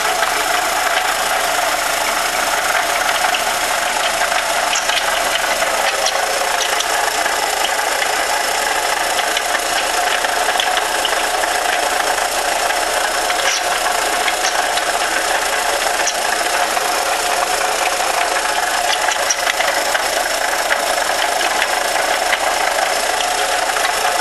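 1998 Volkswagen Jetta 2.0-litre four-cylinder engine running steadily with a knocking, rattling noise, the knock the owners are trying to diagnose.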